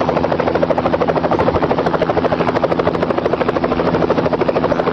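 Loud, steady drone with a low hum and a fast, even throbbing.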